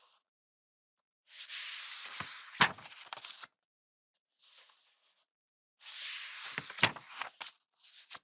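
Book pages being turned by hand, two turns about four seconds apart. Each is a papery rustle with a sharp snap of the page partway through, followed by a softer, shorter rustle.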